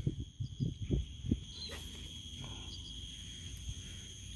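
Steady high-pitched insect chorus over a flooded rice-field swamp, with a few brief low thuds in the first second and a half.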